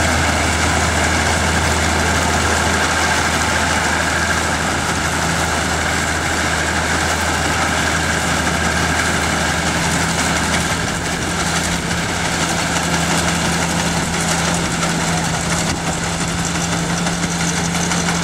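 Vintage tractor engine pulling a tow-behind grain harvester while it harvests, the engine and the harvester's machinery running steadily.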